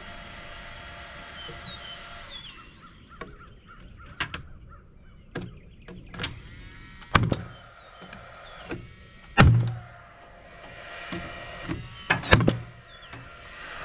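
Several sharp, irregular impacts on wooden framing lumber as purlin boards are fastened onto the roof trusses, the loudest about nine seconds in and two close together near the end. A steady hum in the background stops after about two seconds and comes back near the end.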